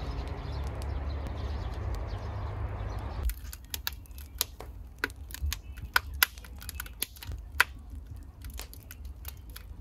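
Split firewood burning in an open wood stove, crackling and popping in sharp, irregular snaps. The crackling starts about three seconds in, just as a steady low wash of sound cuts off.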